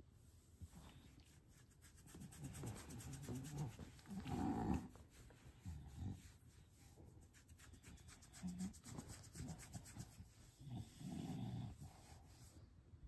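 English bulldog lying on its back making low grunting, snoring breaths in a series of short bursts, the loudest about four seconds in, while its belly is rubbed.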